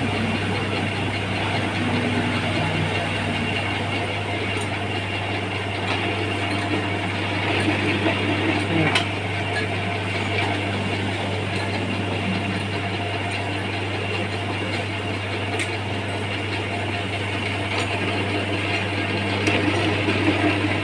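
Steady low machine hum with a continuous rough, noisy sound over it and a few faint clicks.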